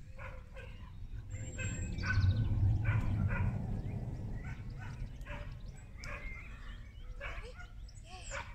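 A dog making short, high yips and whines, about two a second, over a low wind rumble on the microphone.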